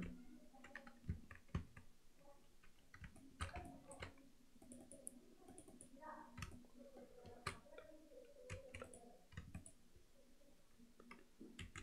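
Faint computer mouse clicks and keyboard key presses, about a dozen at irregular intervals, over a faint steady hum.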